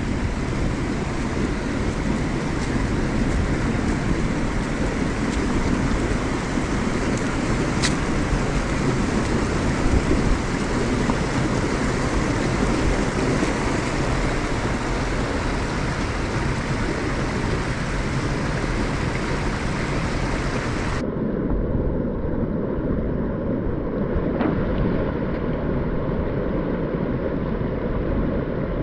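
Creek water rushing over and below a weir, a steady low rush with wind buffeting the microphone. About three-quarters of the way through, the higher hiss drops away suddenly and only the low rush remains.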